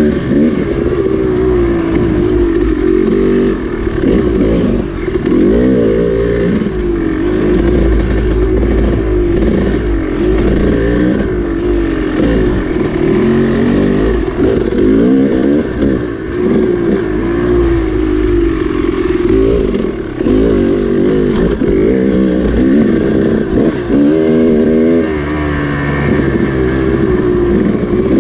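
KTM dirt bike engine under way, its pitch rising and falling again and again as the throttle is opened and closed.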